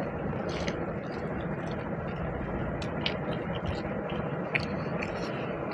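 Steady rushing background noise with scattered faint clicks and smacks of people eating: chewing and mouth sounds over a meal of rice and curry.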